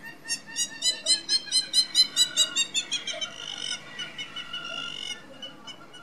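Hamerkop giving its laughing call. It is a fast run of sharp, repeated notes, about four a second, that grows louder and then runs on into a quicker, softer stretch, ending about five seconds in.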